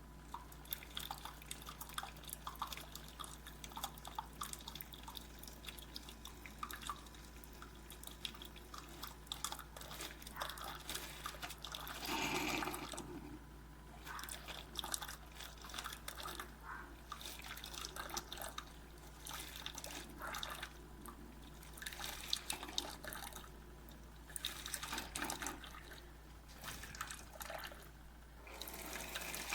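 Cuisinart single-serve coffee brewer dispensing with irregular spitting, spattering and dripping of water over a steady faint hum, with louder spells of sputter about twelve seconds in and again near the end. The owner blames the spitting on the open hole in the bottom of the pod receptacle, which lacks dividers.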